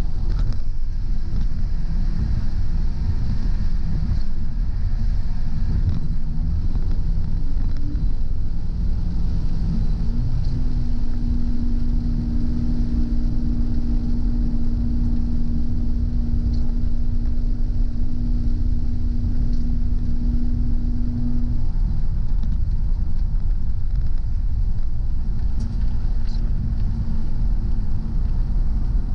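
Car driving along a road: a steady low rumble of engine and road noise with a hiss of tyres, probably on wet pavement. From about ten seconds in, a steady hum holds one pitch for about ten seconds, then fades.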